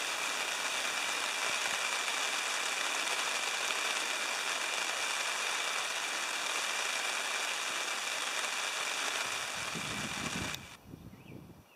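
Steady rain falling on a nylon tarp and the leaves around it, a light passing shower. It cuts off abruptly about ten and a half seconds in, leaving a brief low rumble.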